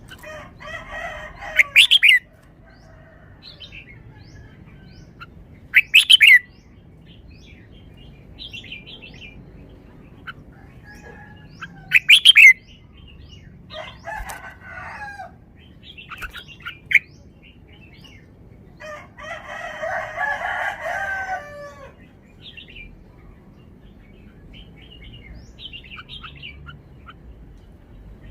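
Red-whiskered bulbul singing: short warbled song phrases spaced several seconds apart, the longest and loudest near the end. Three very short, sharp, loud sounds come about four to six seconds apart in the first half, with scattered quieter chirps in between.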